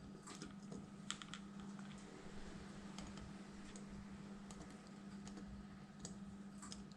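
Faint scattered light clicks and taps of hand soldering on a small circuit board, the iron and solder touching a row of pins, over a steady low hum.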